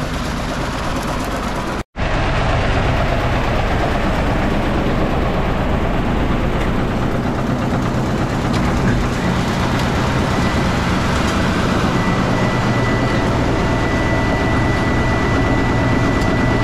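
Farm grain mill and feed auger running steadily, grinding high-moisture corn and running it out into the mixer wagon, with a low machine hum and a thin steady whine. The sound cuts out for an instant about two seconds in, then resumes.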